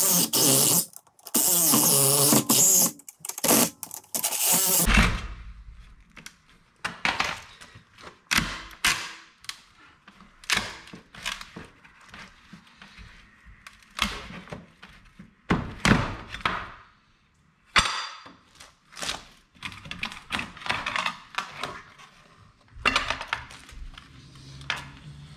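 Cordless reciprocating saw cutting through an old wooden door threshold, running in short stretches until about five seconds in. After that, a string of scattered knocks, thuds and cracks as the cut-out wooden threshold pieces are worked loose and set down.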